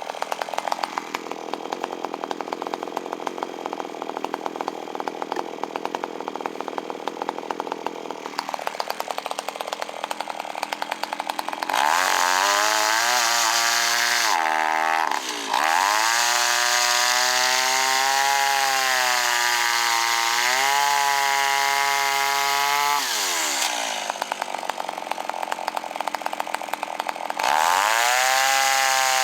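Kyoritsu CS-362 chainsaw's two-stroke engine running with the ignition working again: a rattly idle, then revved to high speed three times with drops back toward idle in between.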